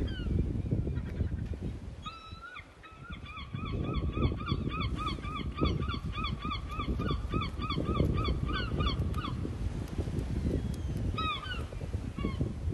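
A bird calls in a fast run of repeated short notes, about three or four a second, for some seven seconds, with a few more single calls near the end. Uneven low rumbling noise runs underneath.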